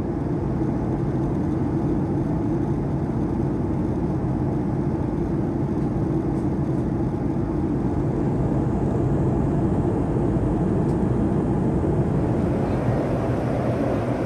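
Steady cabin noise of a Boeing 737-200 in cruise, heard from a window seat by the wing: the low, even drone of its Pratt & Whitney JT8D engines and the airflow, a little brighter near the end.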